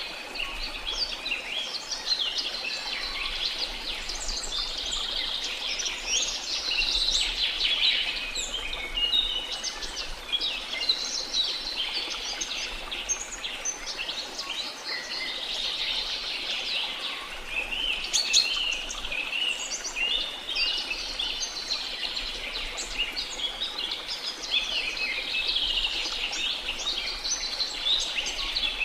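A dense chorus of many birds chirping and trilling without pause, over a steady rush of falling water.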